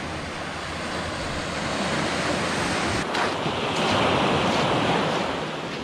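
Sea surf breaking and washing over shoreline rocks, a steady wash of noise that swells through the middle and eases off near the end, with wind on the microphone.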